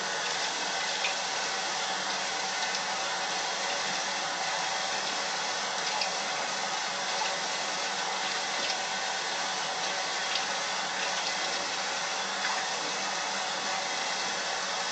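Water running steadily from a bathroom sink tap, with a few faint ticks, as at a face rinse after a shave.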